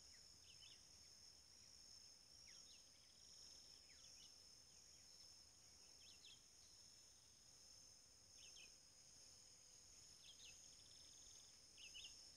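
Near silence: faint rural riverside ambience, with a steady high insect drone like crickets and a few short, faint bird chirps scattered throughout.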